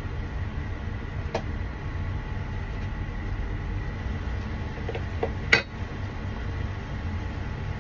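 Light clinks of cooking utensils against the frying pan: one about a second and a half in, then a small cluster ending in the loudest, sharpest clink about five and a half seconds in. Under them runs a steady low kitchen hum.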